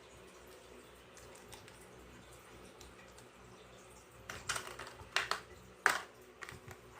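Toy plastic dishes, cups and spoons being handled in play washing up: a quiet stretch, then a run of light clicks and clatters in the second half, the sharpest knock just before the end.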